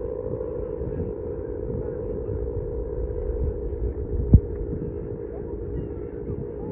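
Steady, wavering hum of a Balinese kite's hummer bow (guangan) buzzing in the wind, over low wind rumble on the microphone. A single thump about four seconds in.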